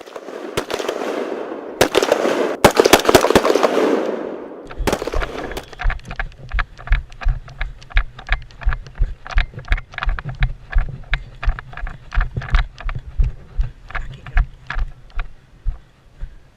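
A loud rushing noise broken by a few sharp cracks, typical of airsoft gun shots, for the first four seconds or so; then a regular run of low thumps with light clicks, about two and a half a second, typical of a player's footsteps picked up by a body-worn camera, growing fainter near the end.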